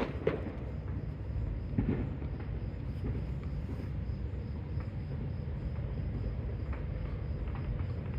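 Crickets chirping in a steady high pulse over a constant low rumble, with a few faint distant pops and thuds of fireworks.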